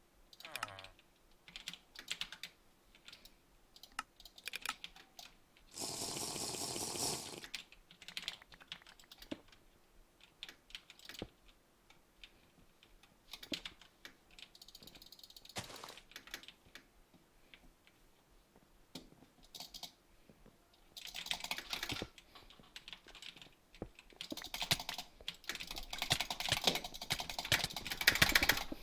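Typing on a computer keyboard: irregular key clicks, with dense runs of fast typing about 21 s in and again over the last few seconds, and a short steadier rattling burst about 6 s in.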